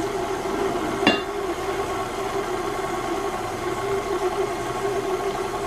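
KitchenAid Classic Plus stand mixer running steadily, its flat beater creaming butter and sugar in the steel bowl. A brief knock comes about a second in.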